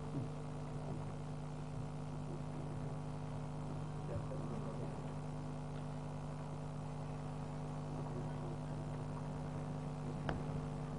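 Steady electrical mains hum and buzz, made of several constant tones over faint background noise, with one faint click near the end.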